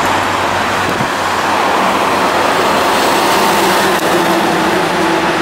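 Road traffic noise with a large dump truck's diesel engine running, steady throughout; a droning tone joins about halfway through.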